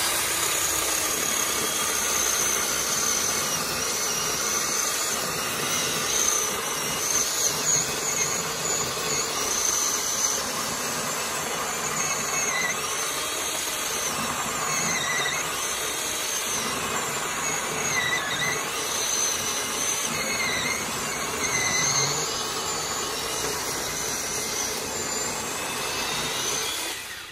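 A 12-inch Greenworks electric chainsaw running continuously as it cuts through a fallen log, its high motor-and-chain whine dipping and rising in pitch under load. The chain and bar are running dry, without bar and chain oil. It stops suddenly at the end.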